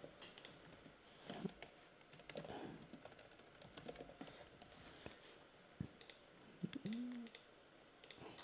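Light typing on a computer keyboard, with scattered clicks. Near the end there is a brief low hum that rises and falls.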